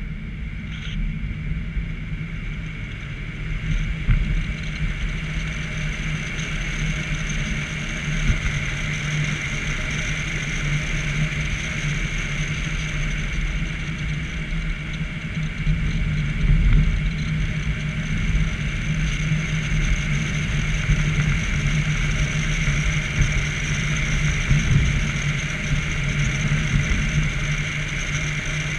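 A car driving steadily along a road, heard from a camera mounted at the front of the car: a continuous low rumble of road and wind noise with a faint steady whine above it and a few brief louder bumps.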